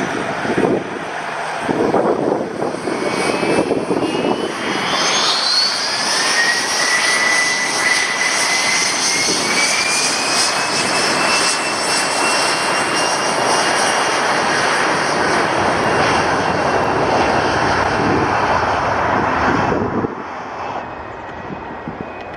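Cessna Citation X's twin Rolls-Royce AE 3007 turbofans spooling up, their whine rising in pitch over a few seconds before settling into a steady, loud roar at high thrust for departure. Near the end the sound drops off suddenly.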